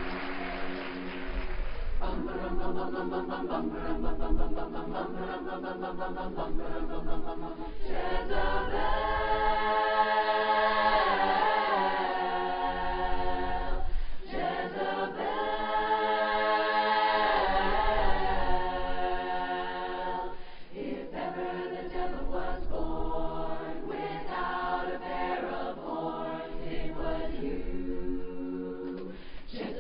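Large women's chorus singing a cappella in close harmony, holding sustained chords that change every few seconds, swelling to its loudest about two-thirds of the way through.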